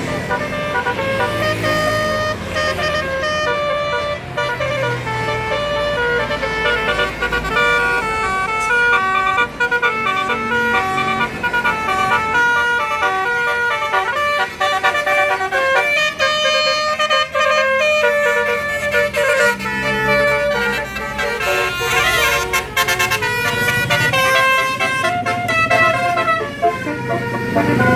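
Indonesian bus telolet horns, multi-tone air horns, playing a long run of stepped, tune-like notes over the low rumble of bus engines.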